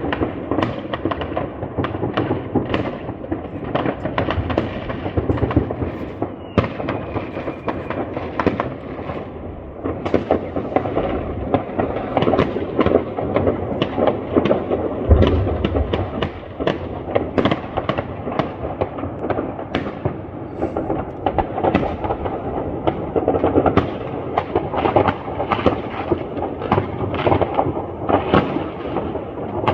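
New Year's fireworks and firecrackers going off all around in a dense, unbroken crackle of overlapping bangs, with a heavier, deeper boom about fifteen seconds in.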